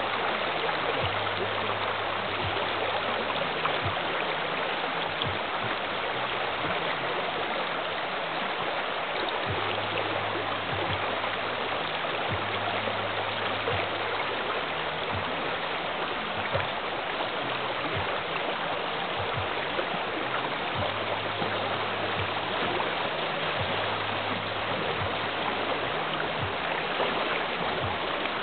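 River water rushing steadily over the rocks and through a whitewater slalom course's rapids.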